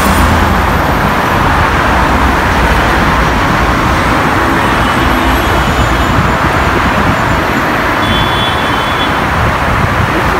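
Steady road traffic from a busy multi-lane road: the continuous, even noise of car and bus engines and tyres, with no single vehicle standing out.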